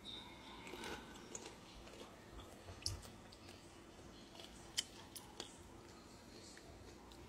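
Faint chewing and mouth sounds of a person eating a mouthful of cooked nopales, with a few small sharp clicks.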